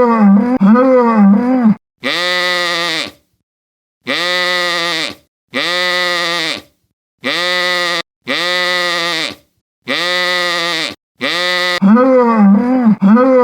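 Animal calls. A rapidly wavering pitched call is followed by six identical long, even-pitched calls of about a second each, separated by complete silence, and then the wavering call again near the end.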